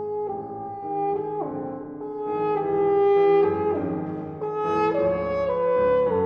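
Alexander model 90 B-flat/A single French horn playing a phrase of held, smoothly joined notes, swelling loudest about halfway through, with grand piano accompaniment beneath.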